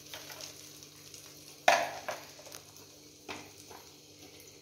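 Spiced egg omelette frying on a flat tawa, a faint steady sizzle, broken by a few sharp knocks, the loudest about a third of the way in and a smaller one past the middle.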